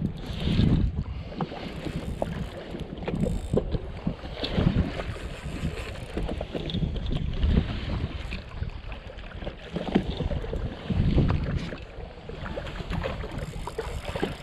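Wind buffeting the microphone in uneven gusts, with small waves lapping and slapping against a drifting jet ski's hull.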